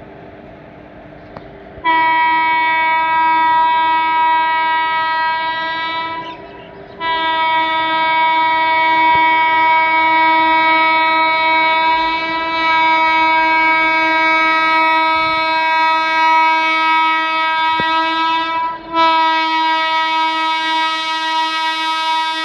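WAG-12 electric freight locomotive's horn sounding long, steady blasts as the train approaches at line speed to run through the station: one of about four seconds, a short break, one of about twelve seconds, then another starting near the end.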